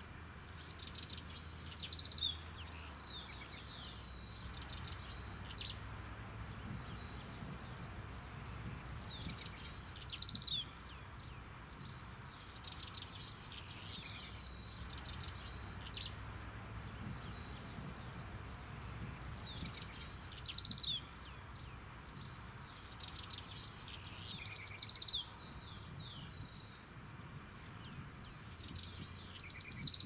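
Small songbirds singing in short, high, warbling phrases every couple of seconds, over a steady low outdoor rumble.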